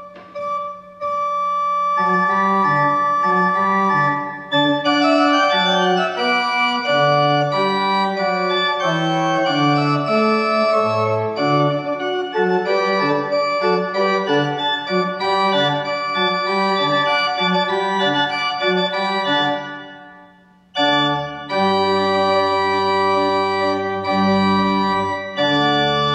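Church pipe organ playing a lively piece with running notes over a moving bass. About twenty seconds in it breaks off for a moment, then comes back with full held chords over deep pedal notes.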